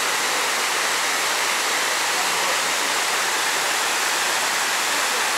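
Steady, even rush of water cascading down the walls of the 9/11 Memorial's south reflecting pool.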